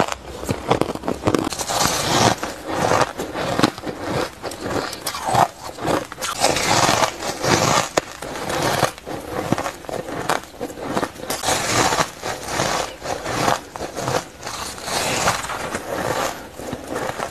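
Frozen shaved ice being bitten and chewed: a dense, irregular run of crisp crunches and crackles, one bite after another.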